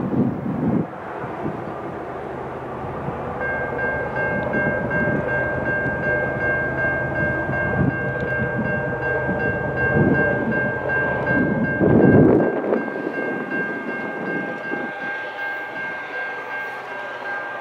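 Diesel freight train approaching from a distance, its horn sounding one long steady note from a few seconds in until near the end. Under the horn there is a low uneven rumble.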